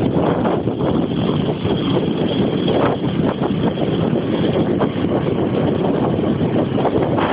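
Steady rushing rumble from a vehicle moving along a street, with wind buffeting the microphone.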